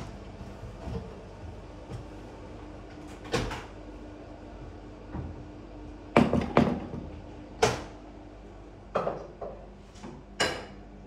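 A wooden room door being handled and opened: several sharp clicks and knocks, spread irregularly, over a faint steady hum.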